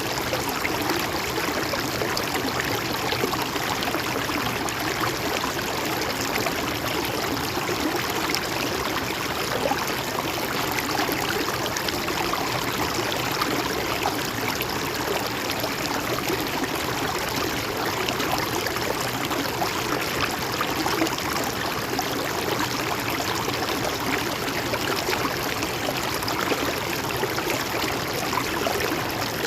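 A stream flowing and trickling steadily over rocks, a continuous even rush of water.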